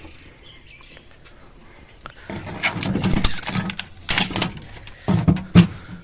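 Handling noise from a new Samsung single-door refrigerator as its door is opened and its freezer compartment handled: rustling and clattering from about two seconds in, then a few sharp knocks near the end. Faint bird chirps sound in the quiet first two seconds.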